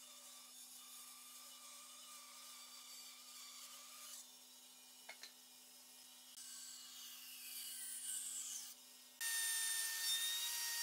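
Band saw running and cutting a curve through a wooden board, a faint steady sound with a constant hum and two light clicks midway. About nine seconds in it switches abruptly to the louder, steady high-pitched whine of an electric plunge router.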